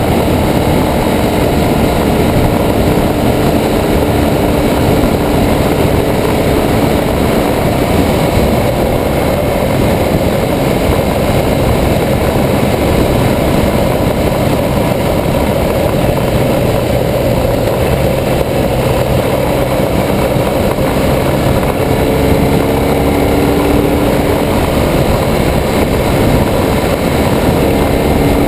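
2009 BMW R1200GS's flat-twin boxer engine running steadily at road speed under wind noise, with the rattle of the broken camera mount.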